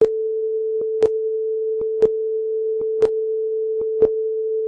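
Film-leader countdown sound effect: a steady mid-pitched tone with a sharp click once a second, each preceded by a fainter click, marking off the seconds of the countdown.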